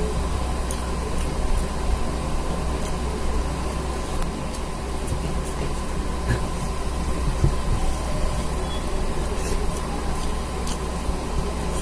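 Steady low machine hum and hiss, with a thin steady tone and a few faint clicks scattered through it.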